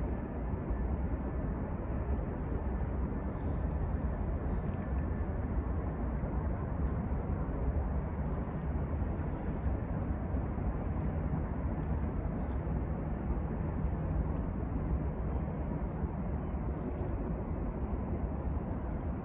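Steady low rumble of a Norfolk Southern manifest freight train heard from far off, mixed with wind noise on the microphone.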